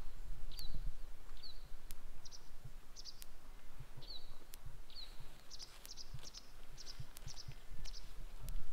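Outdoor ambience of small birds chirping, with short high calls repeated throughout and a few quick downward-sliding notes, over a low wind rumble. A faint sharp tick recurs about every second and a third.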